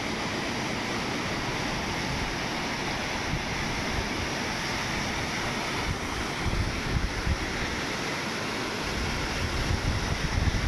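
Ocean surf breaking and washing on a sandy beach as a steady rush, with gusts of wind buffeting the microphone that grow stronger near the end.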